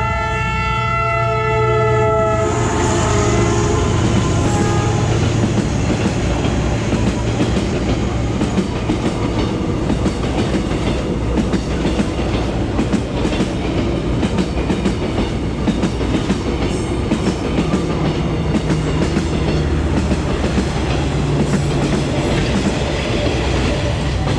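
A Vietnam Railways train's horn sounds a chord that stops about two seconds in. The train then rolls past close by with a steady rumble and the rapid clickety-clack of its wheels over the rail joints, first passenger coaches and then freight wagons.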